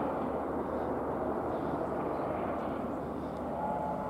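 Airbus EC120B helicopter flying aerobatics: the steady noise of its rotors and turbine engine. A few steady high tones join near the end.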